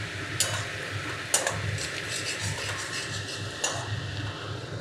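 Spatula stirring onions, ginger and garlic frying in mustard oil in a metal kadai, with a steady sizzle and a few sharp clinks of the spatula against the pan. The turmeric has just gone into the frying onion base.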